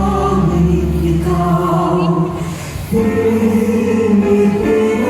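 Music with group singing: several voices holding long sung notes over a steady low bass, with a brief dip just before the phrase changes about three seconds in.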